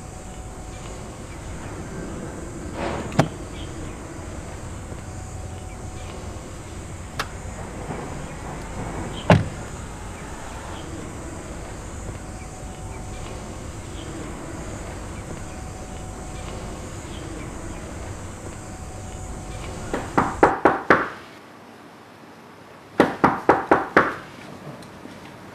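Outdoor ambience with a steady high insect drone and two sharp thuds. Near the end comes a quieter indoor tone, and someone knocks on a wooden door in two quick rounds of about five knocks each.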